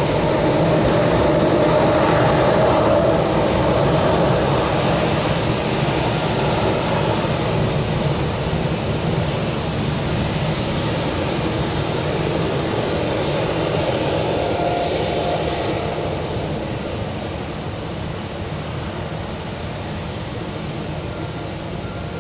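Airbus A319-112's CFM56 turbofan jet engines running at taxi power, a steady rushing whine that slowly grows quieter over the last few seconds.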